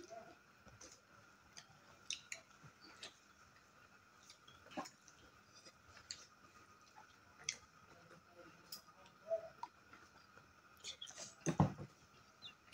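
Eating by hand: scattered soft clicks of chewing and of fingers working rice and cooked greens on steel plates, with one louder knock near the end.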